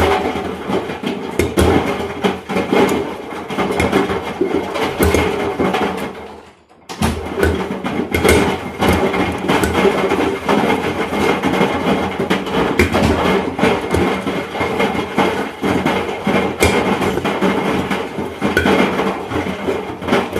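Large blocks of ice tumbling inside a running washing machine drum, banging repeatedly and irregularly against the metal drum over the machine's rumble; the blows are hard enough to dent the drum. The racket breaks off briefly about six seconds in, then carries on.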